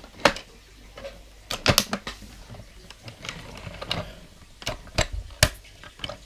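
Hard plastic clicks and knocks from a Rescue Bots Heatwave transforming toy as its parts are folded and moved from robot into fire-truck form and it bumps the tabletop. There are a handful of sharp clicks, the loudest a pair about five seconds in.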